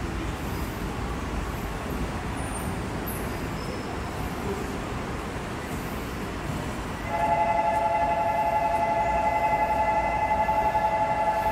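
Seoul subway Line 5 train's horn sounding one long steady chord of several tones for about four and a half seconds, starting about seven seconds in, over the steady rumble of the station and the train in the tunnel.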